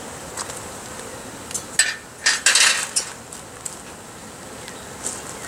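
Wooden hive frame scraping and knocking against the wooden hive box as it is worked down into place between the other frames: a cluster of short scrapes and knocks about two seconds in, with a few fainter clicks around them.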